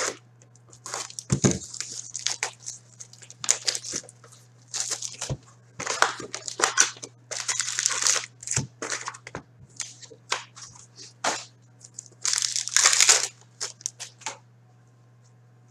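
Cardboard box of 2016-17 Upper Deck Ice hockey cards being opened and its foil card packs pulled out and handled: irregular crinkling, tearing and rustling that stops about a second before the end.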